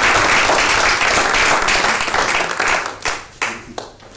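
Applause from a few dozen people clapping. It dies away about three seconds in, with a few last scattered claps.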